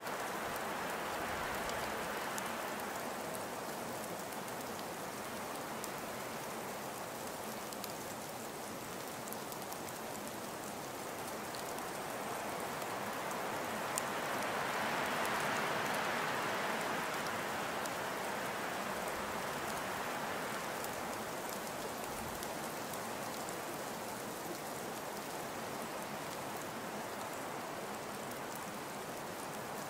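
Steady rain ambience: a continuous hiss of rain with faint fine drop ticks, swelling a little louder about halfway through and easing back.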